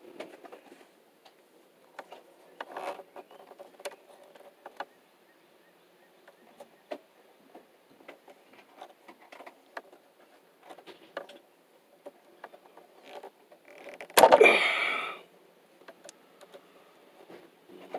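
Small scattered clicks and rustling of wire strippers working the end of an electrical cable. About fourteen seconds in there is a loud sharp snap followed by about a second of noise.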